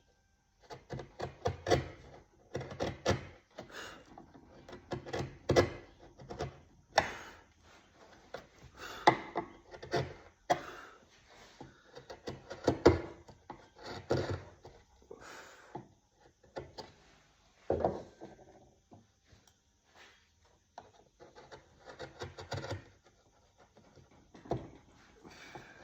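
Hand tool cutting and scraping wood in irregular strokes, short and sharp ones mixed with longer scrapes, as a piece is carved by hand.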